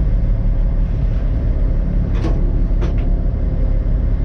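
Komatsu excavator's diesel engine running steadily with a low rumble, with two short sharp knocks a little over two seconds in, about two-thirds of a second apart.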